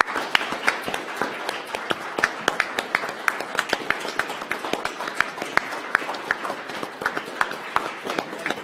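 Applause from a small audience, with separate hand claps heard in a dense, steady patter.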